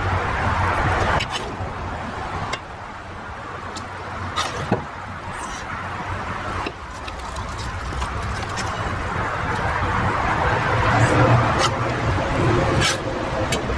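Metal skimmer stirring and scraping rice in a large kazan, with several sharp clinks where it strikes the pot, over a steady noisy background with a low rumble.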